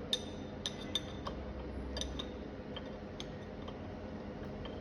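Metal spanner clicking and clinking on the screw of a THDP5 single-punch tablet press's pressure adjuster as the screw is loosened: light, irregular metal ticks, about a dozen of them.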